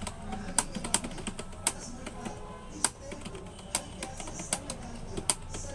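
Computer keyboard typing, sharp key clicks coming irregularly a few times a second, over background music.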